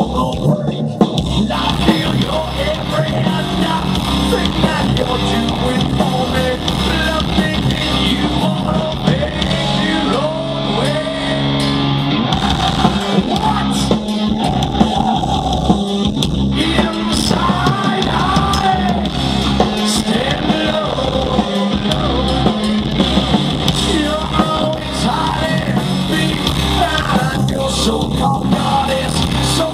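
Hard rock band playing live through a loud PA: distorted electric guitar, drum kit and a male lead singer, heard from the audience.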